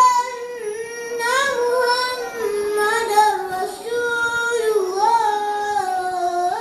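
A boy's voice chanting the Islamic call to prayer (adhan), drawing out long held notes that bend and waver in pitch, sinking lower about five seconds in.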